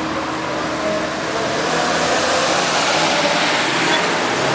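A line of cars, led by a vintage Dodge woodie wagon, driving slowly past one after another: a steady mix of engine and road noise that grows louder about a second and a half in.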